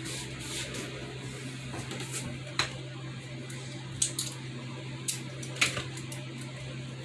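Scattered sharp clicks and light taps of small RC kit parts and packaging being handled, about five of them over a few seconds, over a steady low hum.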